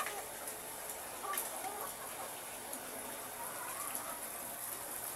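Many ready-to-lay hens in battery cages clucking, with scattered short calls over a steady hiss, and two sharp clicks, one at the start and one about a second and a half in.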